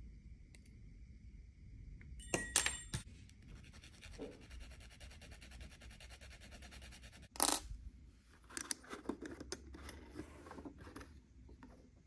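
A thin metal rod snipped with hand cutters about two seconds in, sharp metallic clicks with a brief ring, then a needle file scraping steadily on the rod's end for several seconds. A louder knock follows, then scattered small clicks.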